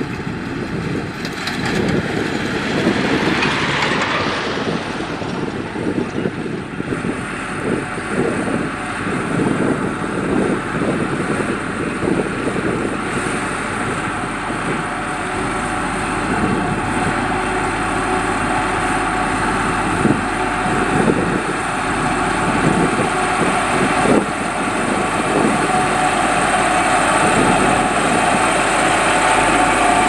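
Diesel engine of a Vibromax single-drum road roller running steadily as the machine rolls over loose soil, with two brief sharp knocks in the second half.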